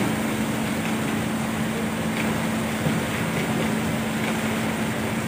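A heavy engine running steadily with a constant low hum, from the machinery lifting the truck.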